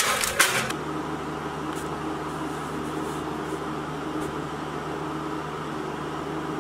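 A baking tray scraping onto an oven rack and the oven door shutting with a clatter in the first second, followed by the steady hum of a fan oven running.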